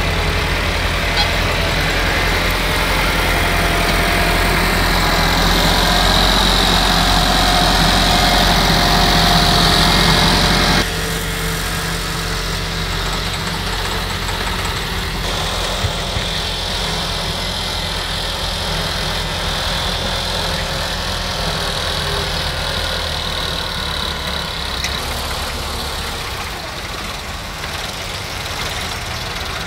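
Massey Ferguson diesel tractor engines running steadily at close range, with a steady high whine over the engine for long stretches. The sound drops a step about eleven seconds in.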